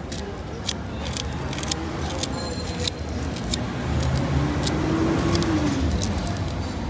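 Small knife cutting into a firm green ambarella held in the hand, a run of crisp clicks as the blade bites the fruit. Under it a steady low rumble of road traffic, with an engine hum that rises and falls between about four and six seconds in.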